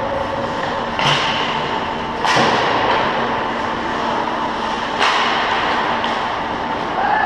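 Ice hockey play: a steady wash of skates scraping on the ice over a faint rink hum, with three sharp knocks from sticks and puck, about a second in, a little past two seconds and at five seconds.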